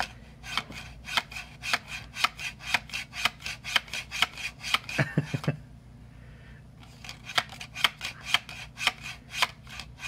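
Rapid sharp tapping clicks on a hard surface, about four to five a second, in two runs separated by a pause of about a second and a half, with a few duller knocks at the end of the first run.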